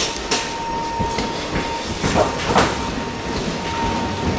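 Wheeled suitcases rolling along a jet bridge floor: a steady rumble with a few sharp clacks, over a steady high hum.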